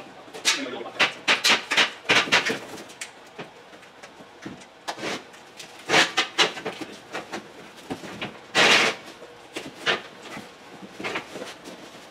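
Irregular clatter of sharp knocks and clicks from handling cardboard boxes and store fixtures, with a longer scraping rustle about nine seconds in.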